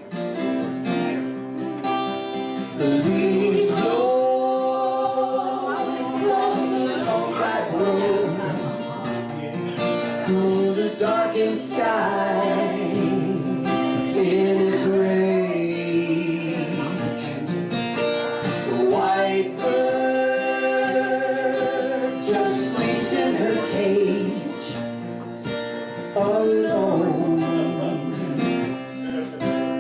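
Live band performing a song: strummed acoustic guitar under a singing voice holding long, gliding notes.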